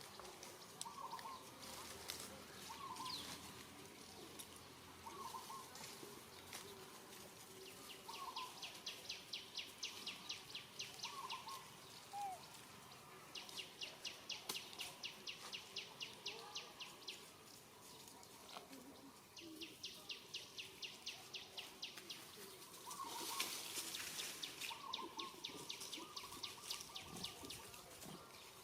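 Outdoor animal calls: three runs of evenly pulsed, high chirping, each lasting several seconds at roughly three pulses a second, with short lower chirps scattered between them.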